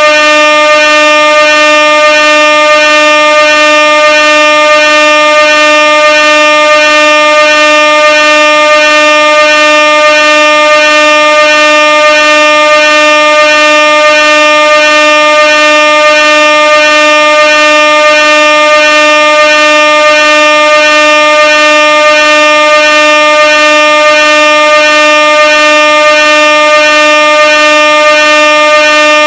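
Air horn sounding one continuous, loud blast: a steady, unbroken tone with a slight regular wavering.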